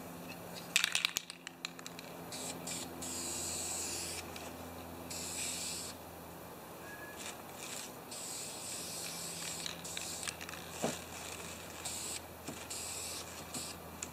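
Aerosol spray paint can hissing in about four separate bursts of one to two seconds each, with a few sharp clicks about a second in.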